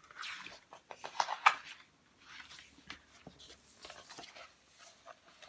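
Pages of a large picture book being handled and turned: paper rustling and crinkling with several sharp clicks and taps, the loudest a little over a second in, then quieter rustles.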